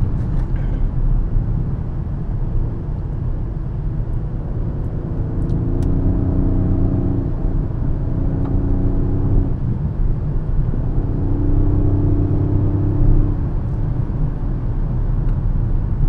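Car engine and tyre and road rumble heard from inside the cabin at speed. The engine note comes up strongly twice under power, about five seconds in and again about eleven seconds in, and eases off in between.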